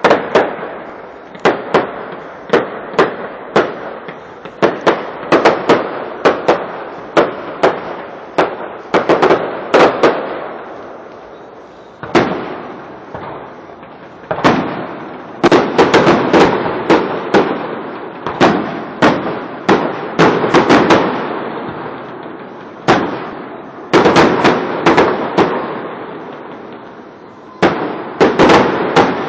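Fireworks display: a fast run of bangs from aerial shells bursting, with bursts of crackle, each bang trailing off in a brief echo. The bangs come in volleys separated by short lulls.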